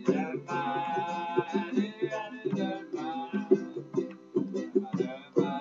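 Live acoustic music: a plucked string instrument strummed in a steady rhythm, with a voice singing long, held notes over it.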